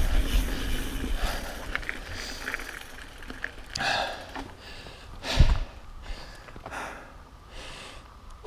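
Mountain bike ridden along a trail, with the rider's hard breathing in short puffs. There is wind on the microphone that fades over the first couple of seconds, and a sharp knock from the bike about five seconds in.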